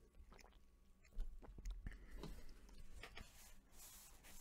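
Faint swallowing and mouth sounds from drinking water out of a plastic bottle, with a low bump about a second in, then paper napkin rustling against the mouth near the end.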